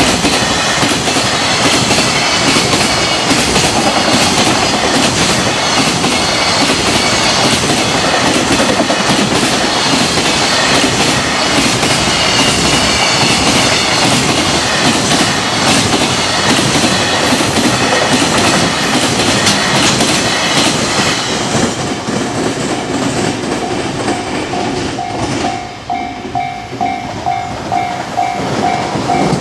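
Long freight train of container and tank wagons passing at speed, its wheels clattering over the rail joints in a dense, rapid clickety-clack. The last wagons clear about 25 seconds in, leaving the level-crossing warning bell ringing in a steady, rapid pulse.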